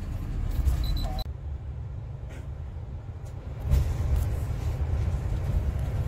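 Route bus driving, heard from inside the cabin: a steady low rumble of engine and road noise that gets louder about two-thirds of the way in.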